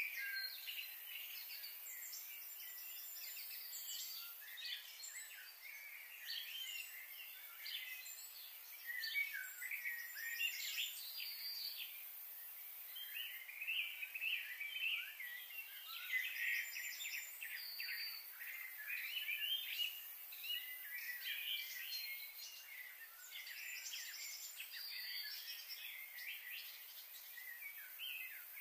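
Many small birds chirping and trilling in quick, overlapping calls, mixed with the rustle and crunch of bamboo leaves as a giant panda eats.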